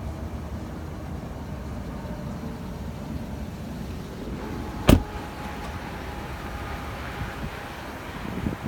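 Steady low vehicle rumble with a single sharp knock about five seconds in.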